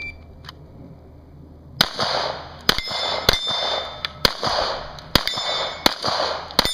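Handgun fired in a string of about eight shots, roughly a second apart, beginning about two seconds in. Each shot is followed by the ring of a struck steel plate target.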